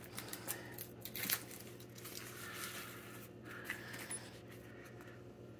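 Soft crinkling of a paper-and-plastic wrapping handled in the hands as a small item is unwrapped, with a few light clicks in the first second or so.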